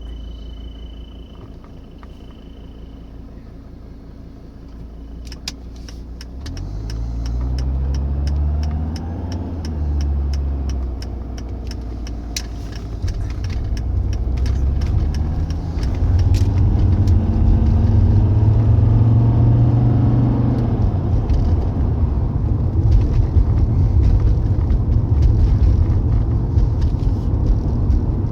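Mercedes 300D 2.5 Turbo's five-cylinder turbodiesel pulling away and accelerating, its note rising and dropping back several times as it goes through the gears. A patter of light clicks comes over the first part.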